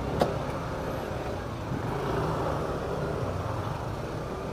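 Road traffic with a steady low engine rumble, and a single sharp click just after the start.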